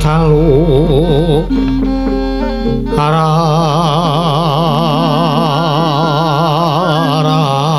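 A wayang kulit dalang singing a suluk in Javanese, his voice wavering widely in pitch. From about three seconds in he holds one long note, over steady tones from the soft gamelan instruments.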